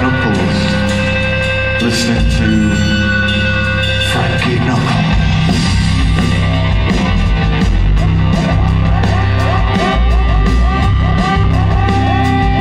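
A live rock band playing loudly, with electric guitar and drums over a steady bass. Short repeated sliding notes come in during the second half.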